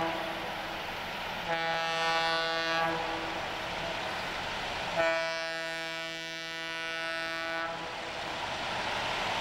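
Air horn of an approaching GM G22UB diesel freight locomotive: the tail of one blast right at the start, then a blast of about a second and a half and a longer one of nearly three seconds. Between and under the blasts, the low rumble of the train running on the rails.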